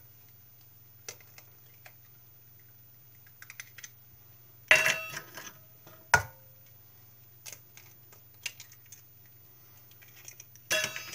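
Eggs knocked and cracked open over a ceramic baking dish: a few sharp knocks, the loudest about five and six seconds in and near the end, some with a short ring, with lighter clicks between them and a low steady hum underneath.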